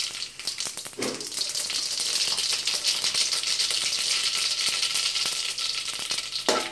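Mustard seeds spluttering in hot oil in a kadai, with fennel and cumin seeds frying alongside: a dense crackle of quick small pops over a sizzle. The spluttering is the cue that the tempering is done.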